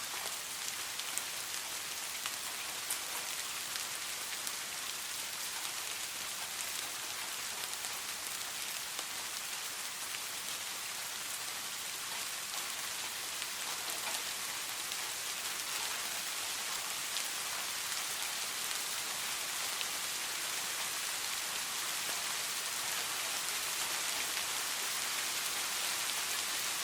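Steady rain falling: a dense, even hiss dotted with scattered individual drop ticks, growing slightly louder toward the end.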